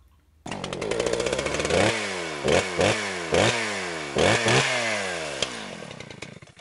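An engine starts suddenly about half a second in and is revved in about six quick throttle blips. Each blip jumps up in pitch and then falls away slowly over the running note.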